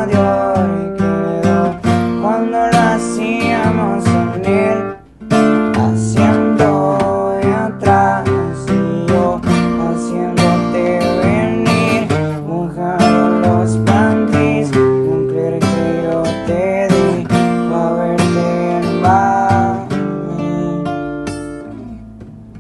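Acoustic guitar music, with strummed chords under a picked melody. There is a short break about five seconds in, and the music fades near the end.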